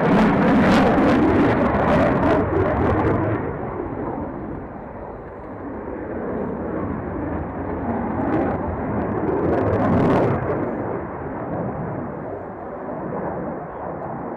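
Aircraft engine noise: a loud roar for the first few seconds that then dies down, swelling again about eight to ten seconds in before easing off.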